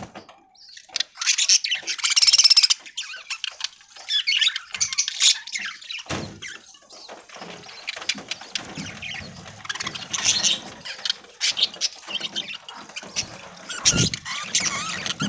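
A flock of budgerigars chattering and squawking, a dense busy warble, loudest about two seconds in. Two dull thumps come near the middle and near the end.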